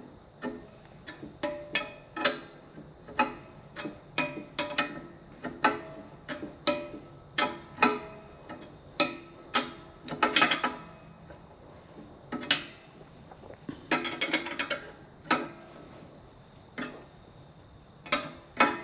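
Steel open-end wrench clinking against the tube fitting on an air compressor's head as the nut is tightened in short strokes: sharp, ringing metal clinks, one or two a second, with a couple of short pauses.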